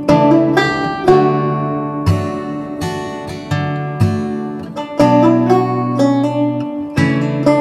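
Outro music: acoustic guitar strumming chords, a fresh chord struck about once a second and left to ring.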